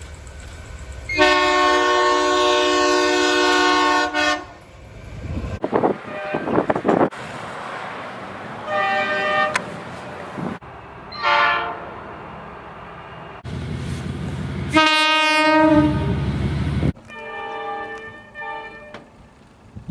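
A series of separate train horn blasts cut one after another: a long chord of several tones lasting about three seconds, then four shorter blasts, the last one fainter. Between the blasts there is a steady noisy rumble.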